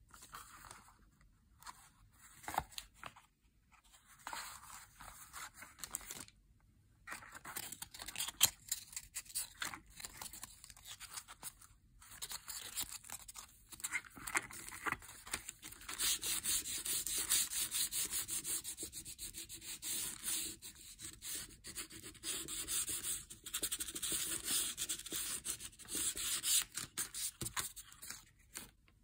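A sanding block rubbed in quick back-and-forth strokes over a printed paper image, scuffing its bright, shiny surface to make it look older. The strokes come in short stop-start spells at first, then run continuously and louder through the second half.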